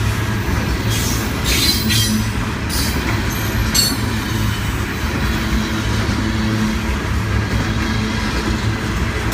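Tropicana refrigerated boxcars rolling past close by: a steady rumble of steel wheels on the rails, with short high-pitched wheel squeals a few times in the first four seconds.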